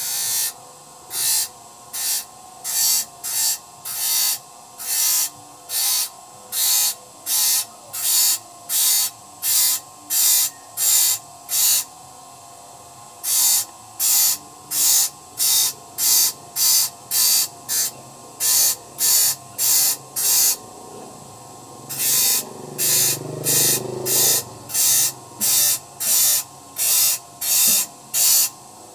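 Hand saw being sharpened with a file: a steady run of rasping file strokes across the saw teeth, about one and a half strokes a second, pausing briefly twice.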